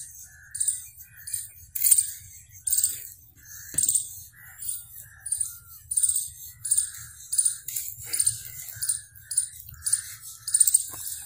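A bird calling over and over in a steady rhythm, about three calls every two seconds, each call short and shrill. A faint low rumble runs beneath it.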